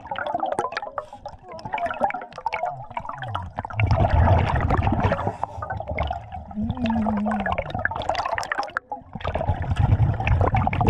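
Underwater sound of a scuba diver's breathing: gurgling, rumbling bubbles from the regulator's exhaust, with a hiss near the end, over many small clicks and knocks from debris being handled.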